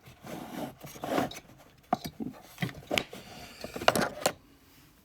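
Small metal parts of an opened Abus C83 padlock being handled and worked at by hand: rubbing and scraping, with several sharp clicks in the second half.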